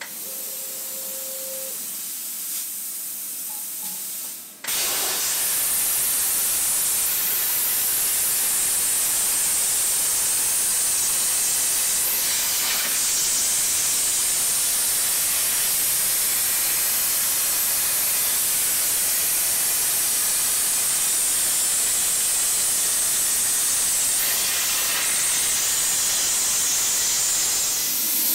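CNC plasma cutter torch cutting 2.5 mm 316 stainless steel sheet. After a quieter hiss at first, the arc comes on about five seconds in and cuts with a loud, steady hiss.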